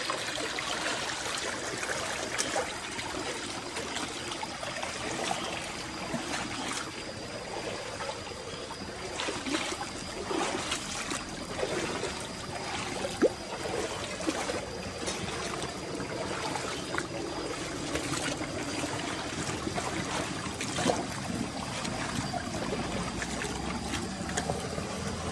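Shallow rocky stream running and splashing, with feet wading through the water and scattered sharp splashes and knocks.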